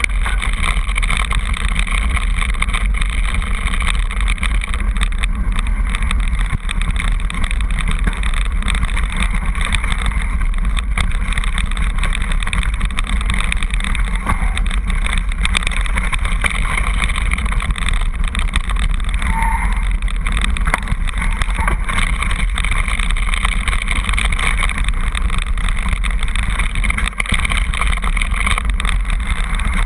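Mountain bike rolling down a loose stone track, heard through a bike-mounted camera as a steady, loud noise of tyres on stones, frame rattle and wind on the microphone.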